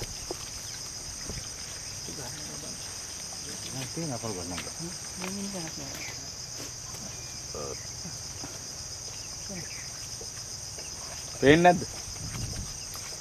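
A steady, high-pitched chorus of insects, with faint voices a few seconds in and a brief loud shout from a person near the end.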